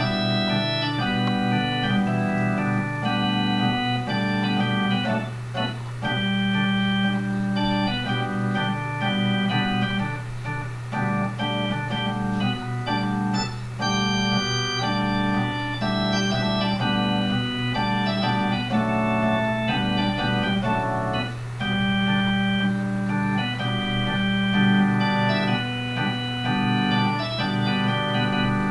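Improvised tune on an electronic keyboard with an organ voice: sustained chords that change every second or two over a steadily held low bass note.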